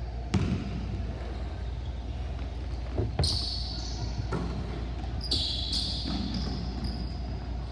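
A basketball thudding on a hardwood gym floor and being passed, with sneakers squeaking on the floor several times as players cut.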